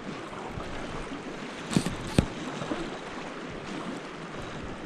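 Steady rush of creek water, with two brief sharp sounds close together about two seconds in.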